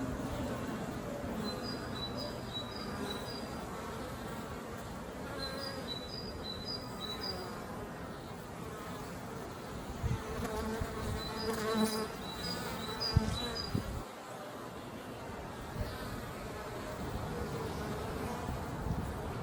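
Honey bees buzzing in flight at the hive entrance, a steady hum of many wingbeats. A short phrase of high, alternating chirps repeats three times over it, and a few soft low knocks come about two-thirds of the way through.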